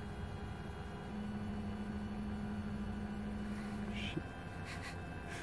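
3D food printer's motors humming as the nozzle extrudes paste, a steady low tone over a constant background hum. The tone gets louder about a second in and stops with a faint click about four seconds in.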